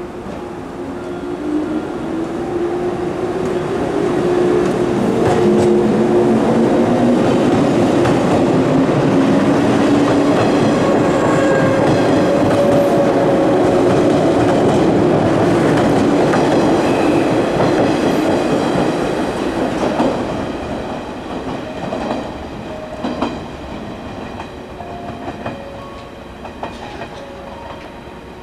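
An older JNR-built local electric train departing and running past at close range. Its motor whine rises in pitch as it picks up speed, then the wheels clack over the rail joints as the sound fades away.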